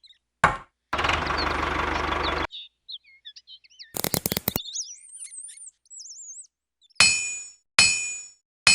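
A string of separate short sounds: a steady noisy run of about a second and a half, then bird-like chirps with a quick run of clicks, then three sharp struck hits that ring and fade, the last right at the end.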